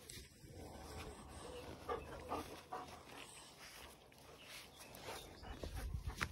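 Puppies and dogs at play making short, quiet vocal sounds, several close together about two to three seconds in.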